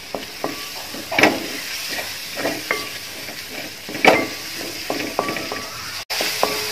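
A wooden spatula stirs and scrapes sliced tomatoes through a frying onion masala in a metal pot. It knocks against the pot's sides so the pot rings briefly, over a steady sizzle. The loudest knocks come about a second in and about four seconds in.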